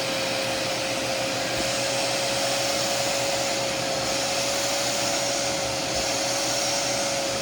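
Hoover Power Dash portable carpet shampooer running steadily while in use on carpet: the rush of its suction motor with one steady whining tone over it.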